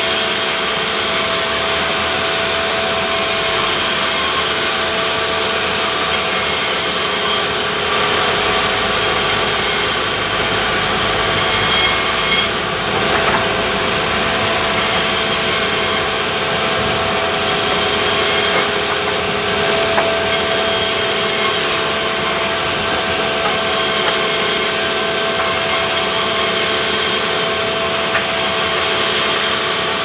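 Sawmill band saw running without a break as it rips a pulai (Alstonia) log lengthwise into boards, a steady machine noise with an even whine.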